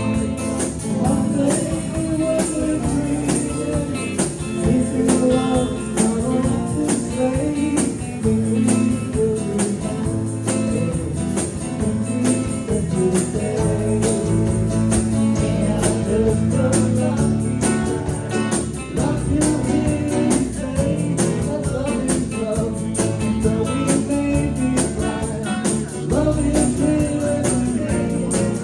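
Live band playing an instrumental passage of a song, with guitar, bass and a steady beat.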